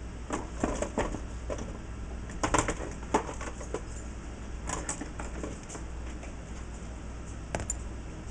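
Small hardware and tools being handled during assembly: irregular light clicks and clinks, with a cluster of them about two and a half to three seconds in, over a steady low hum.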